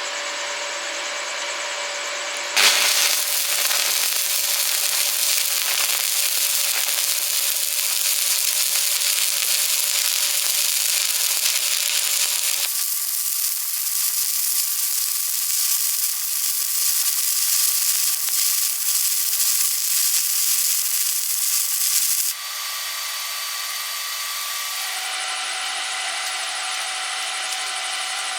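Stick welding arc crackling and hissing steadily, struck sharply a few seconds in and broken off about twenty seconds later. Before and after the arc, a quieter steady hum with faint held tones.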